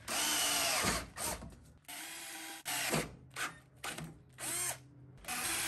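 Power drill running in a series of short trigger bursts, its motor speeding up and slowing with each pull, as a small bit bores pilot holes into the truck's steel frame where the metal is double thickness.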